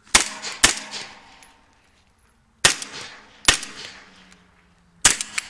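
Semi-automatic gunshots from a CZ Scorpion EVO 9 mm pistol-calibre carbine, fired in pairs: two near the start about half a second apart, two more around the middle, and a quick pair near the end. Each shot is sharp and trails off in a short echo.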